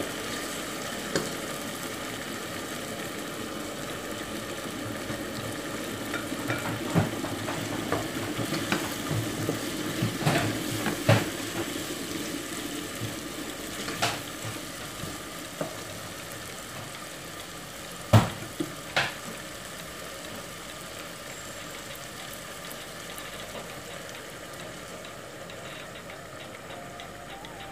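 Chicken and vegetables sizzling in a pot as they are stirred with a spatula, the spatula knocking against the pot a dozen or so times in the middle, loudest twice near two-thirds of the way through. After that the sizzle goes on steadily without knocks.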